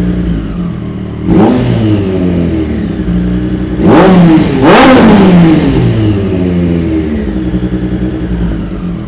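Triumph Street Triple RS inline three-cylinder engine running through a loud aftermarket cutback exhaust. It holds a high idle, with a quick throttle blip about a second in and two more close together around four and five seconds in. The revs are hanging above idle after the engine adaptations were reset, which is expected to clear up.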